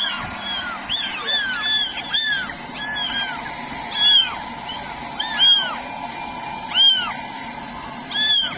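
Wet kittens mewing repeatedly in short, high-pitched calls, about two a second and sometimes overlapping, while they are being dried. A steady whir runs underneath.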